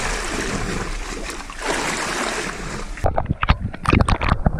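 Wind and sea noise on an open boat, then, about three seconds in, a sudden change to the muffled splashes and knocks picked up by an underwater camera in the sea.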